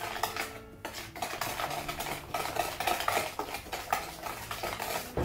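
Wire whisk beating butter, sugar and egg in a plastic mixing bowl: quick, irregular scraping and tapping strokes, about three a second.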